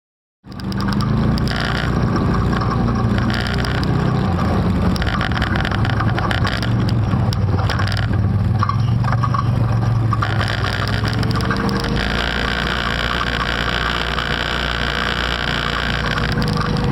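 ATV (quad bike) engines running as the quads ride along, the sound cutting in abruptly about half a second in. A whine rises about eleven seconds in and then holds steady.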